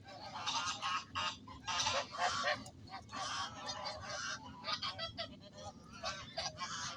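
Geese honking, several birds calling over one another in quick, repeated honks.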